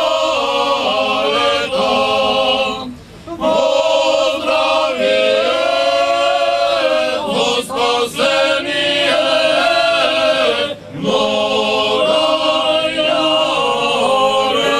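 Orthodox church choir singing a liturgical chant unaccompanied, in long held phrases with short breaks about three and eleven seconds in.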